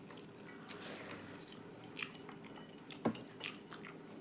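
Mouth sounds of eating a meal of rice, dal and vegetable curry: soft chewing with scattered small wet smacks and clicks, one sharper click a little after three seconds in.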